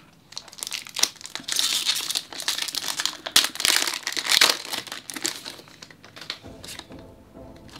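Pokémon TCG Chilling Reign booster pack's foil wrapper being handled and torn open: crinkling and crackling in bursts for about the first five seconds.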